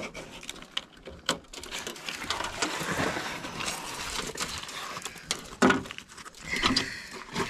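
Rustling and scraping close to the microphone with scattered clicks, and a sharper knock a little before the end, as a hand and camera move along and under the car's body.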